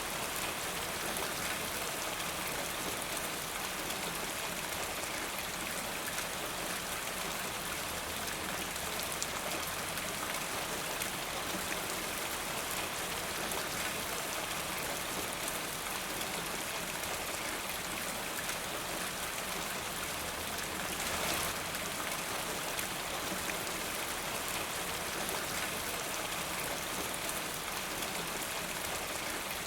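Steady rain falling, an even, dense hiss of drops, briefly a little louder about two-thirds of the way through.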